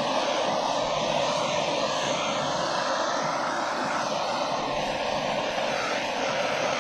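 A steady, loud rushing noise of blown air from a blower, its tone slowly shifting.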